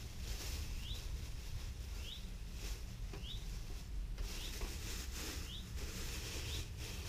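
Thin plastic bag crinkling and rustling as hands dig a pad of steel wool out of it. A short, high, rising chirp repeats about once a second.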